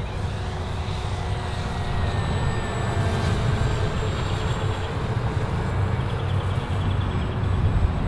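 Electric motor and propeller of a radio-controlled P-51 Mustang park flyer whining as it flies past, its pitch drifting slightly lower. Heavy wind rumble on the microphone sits underneath and is the loudest part.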